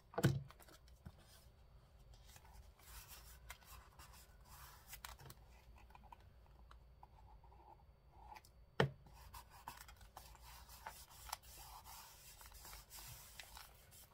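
Paper and craft pieces being handled on a tabletop: light rustling and scraping with scattered small clicks, and two sharp knocks, one right at the start and one about nine seconds in.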